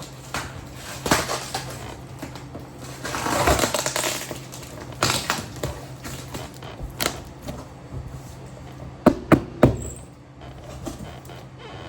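Objects being handled: scattered clicks and knocks, a rustling stretch about three seconds in, and three sharp knocks close together near the end.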